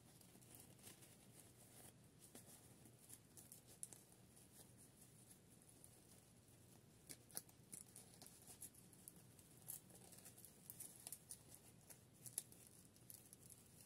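Near silence with faint handling sounds: soft fabric rustles and light clicks as hands pull a small dress onto a plastic mini doll. The clicks come more often in the second half.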